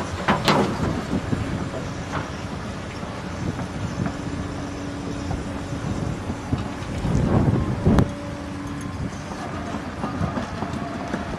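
Heavy machinery running with a steady low rumble, with a sharp metallic knock near the start and a louder one about two-thirds of the way through.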